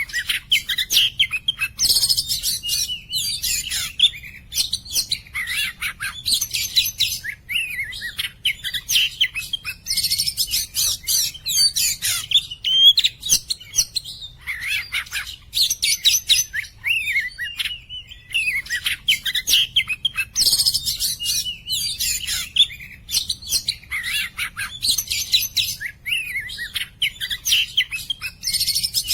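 Oriental magpie-robin (kacer) singing without pause: a clear, rapid run of varied whistles, trills and chattering phrases, broken by brief gaps.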